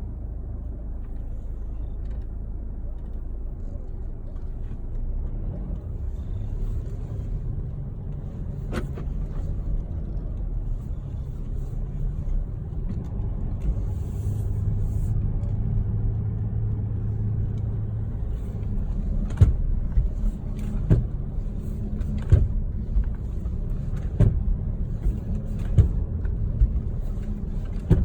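Facelifted Mercedes-Benz W212 on the move, with a steady low road rumble and sharp knocks from around the right front wheel. One knock comes about a third of the way in, then they repeat roughly every second and a half through the last third.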